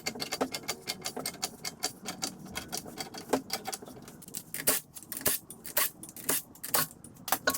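Dense, irregular crackling and clicking of small objects being handled, starting abruptly.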